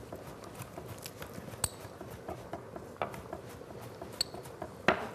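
Chef's knife chopping on a wooden cutting board: scattered, irregular taps of the blade on the board, a few of them louder.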